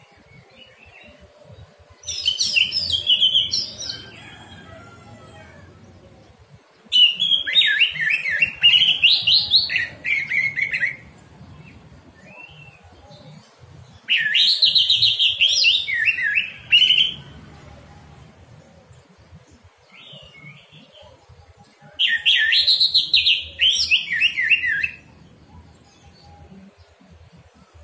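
Orange-headed thrush singing: four loud phrases of quick, varied whistled notes, each two to four seconds long, with pauses between them.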